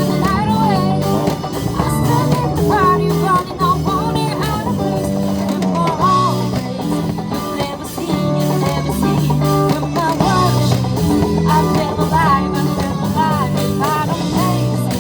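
Live busking music: a singer performing a song over guitar and bass accompaniment.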